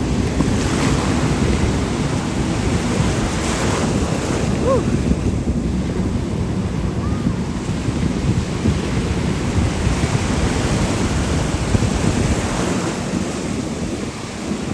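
Ocean surf washing around, with wind buffeting the microphone. A couple of faint, short chirps sound about five and seven seconds in.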